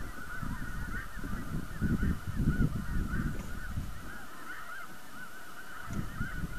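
A large flock of snow geese calling all at once: a constant chatter of many overlapping high, yelping honks. A low rumbling noise runs underneath, loudest about two to three seconds in.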